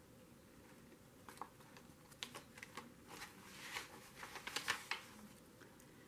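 Faint rustling and light taps of small paper cards being handled, folded up and tucked back into a paper pocket, busiest from about two seconds in.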